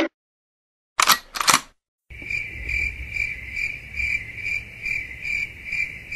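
A camera shutter sound effect clicking twice about a second in, then crickets chirping in an even rhythm, about two to three chirps a second.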